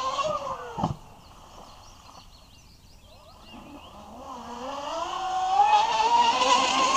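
Electric RC speedboat Bandit S with a Leo LC 500/1720 brushless outrunner motor on 6S and a 45 mm two-blade propeller, running fast: a high motor-and-propeller whine. The whine climbs in pitch, fades as the boat runs away, then grows louder and climbs again as it comes back. There is a short thump just under a second in.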